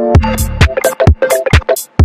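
Electronic background music: a drum-machine beat with a short synth melody, kicking in right at the start after a swelling note, the beat about two hits a second.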